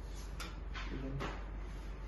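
A person breathing in deeply, as cued before a chiropractic adjustment, with a short murmur of voice about a second in.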